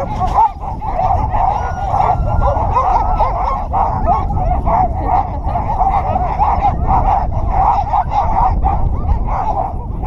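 A large pack of sled dogs yelping and whining together: a dense, unbroken chorus of short, wavering high cries from many dogs at once.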